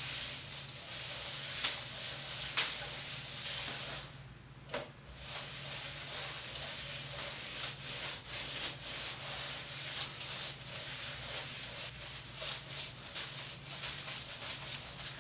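Wet shop rag rubbing back and forth over the metal shell of a muffler, wiping away a baking soda and lemon juice paste used to loosen rust. The scrubbing is steady, with a brief pause about four seconds in.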